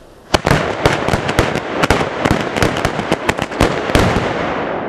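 A Spanish traca, a long firecracker chain, going off: a sharp first bang about a third of a second in, then a loud, rapid, unbroken string of bangs and crackle for about four seconds, dying down near the end.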